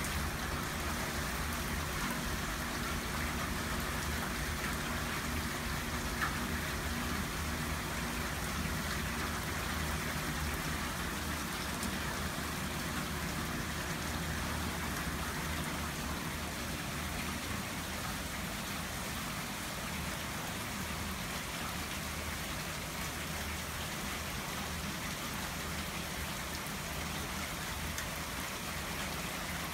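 Steady rain from a squall-line thunderstorm falling on plants, mulch and a concrete sidewalk, easing a little in the second half.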